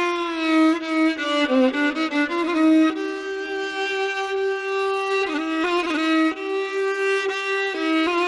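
Solo violin playing a slow melody, with long held notes joined by sliding pitch changes and quick ornamental turns.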